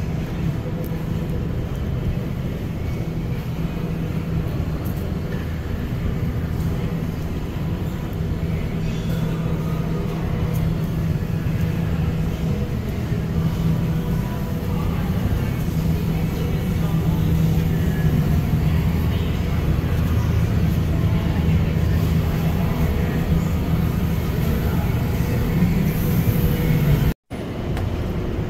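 Steady low hum of a large indoor hall's background noise, with faint voices in the distance. It grows a little louder in the second half and cuts out for a moment near the end.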